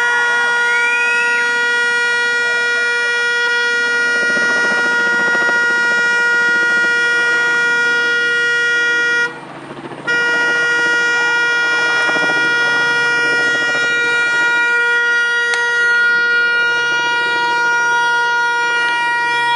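Car horn stuck on, blaring one continuous steady tone from the burning car, the kind of horn that sounds on its own when fire shorts the car's wiring. It breaks off for under a second about nine seconds in, then carries on at the same pitch.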